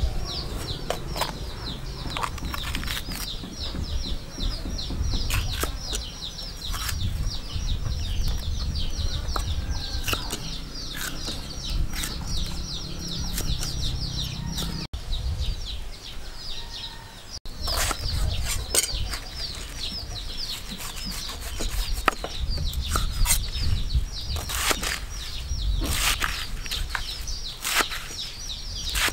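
A kitchen knife slicing through a green bell pepper and then napa cabbage on a wooden chopping board, with a knock of the blade on the wood at each cut. Behind the cuts runs a steady chorus of rapid, high chirps.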